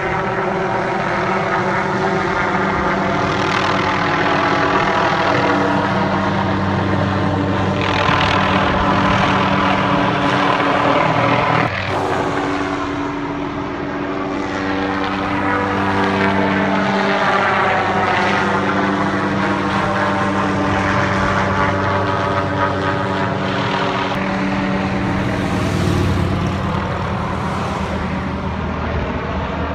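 Hughes helicopter flying overhead: steady rotor and engine sound whose tone shifts slowly up and down as it moves, with a brief sharp break about twelve seconds in.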